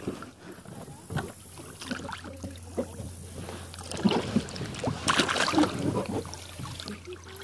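Water splashing and sloshing around a kayak as a person climbs out into shallow river water and moves beside the boat. The splashes come in irregular bursts and are busiest about four to six seconds in.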